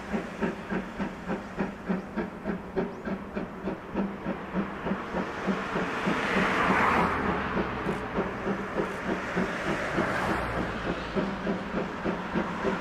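C11-class steam tank locomotive C11 325 working toward the listener, its exhaust chuffing in steady, even beats several times a second. A louder hiss of steam swells about six seconds in and again near the end.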